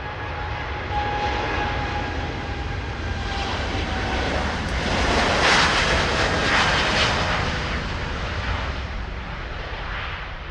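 Boeing 787 Dreamliner jet airliner taking off and passing by: a rushing engine roar that swells to its loudest about halfway through and then fades, with a faint whine in the first seconds.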